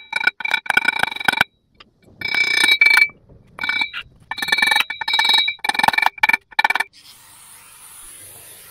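Brass hammer tapping steel locating pins into an engine flywheel, in quick clusters of light strikes, the flywheel ringing with each tap. Near the end the taps stop and a steady hiss takes over.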